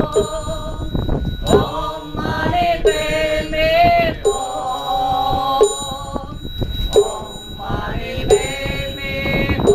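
Buddhist mantra chanting set to music, sung in long held notes with a short break every second or so.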